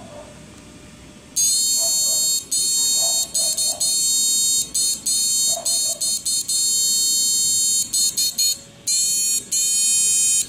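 High-pitched electronic whine from a homemade two-MOSFET converter driven by an SG3525 PWM module, running with a lamp as its load. It starts about a second and a half in and keeps cutting out and back in, many times and irregularly.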